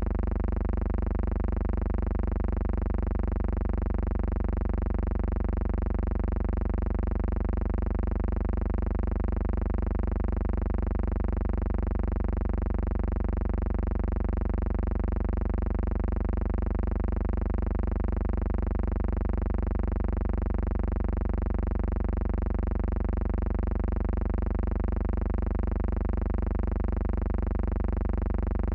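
A steady low electrical hum with a buzzy stack of overtones, unchanging in pitch and loudness throughout, with no sound of wind or water.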